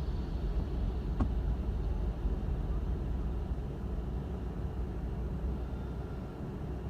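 Car driving, a steady low rumble of engine and road noise heard from inside the cabin, with a single sharp click a little over a second in.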